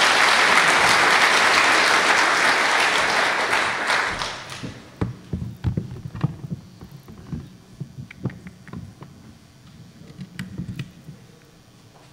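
Audience applauding, which dies away about four seconds in. Scattered light knocks and clatter follow.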